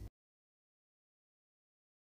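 Silence: the sound track cuts out completely just after the start and stays empty, with no room tone at all.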